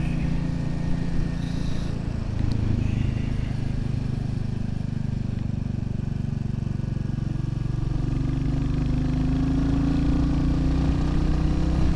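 Royal Enfield Classic 350's single-cylinder engine running steadily as the motorcycle is ridden. Its pitch rises gently over the last few seconds as it picks up speed.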